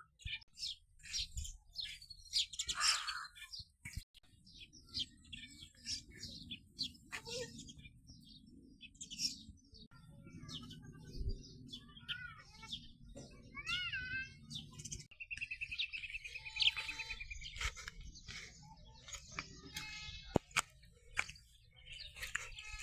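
Many small birds chirping: rapid short high calls throughout, a few rising-and-falling whistles about halfway through, and a fast trill a little later, over a low steady background noise.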